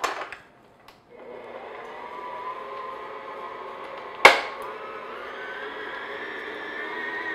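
Stand mixer motor starting about a second in and running steadily on low speed with a whine, its paddle attachment beating butter and sugar in a glass bowl. A single sharp knock about four seconds in.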